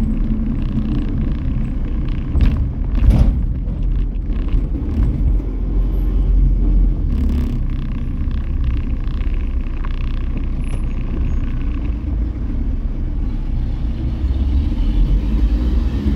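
Steady low rumble of a car being driven at town speed, engine and tyre noise, with a few short clicks or knocks about three seconds in and again about seven seconds in.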